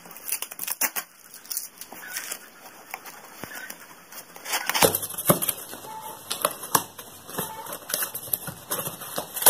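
Cardboard shipping box being opened by hand: irregular crackling, scratching and tearing as tape is picked at and the cardboard flaps are pulled apart.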